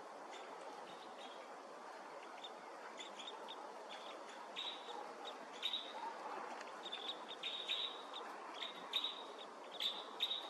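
Crossbill calling: short, sharp chip notes, scattered at first and then in quick clusters from about halfway through.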